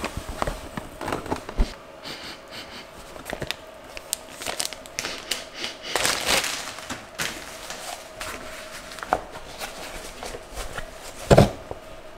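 Unboxing sounds: the cardboard box's flaps being opened and handled, then a clear plastic bag crinkling, loudest about six seconds in, with a sharp knock near the end.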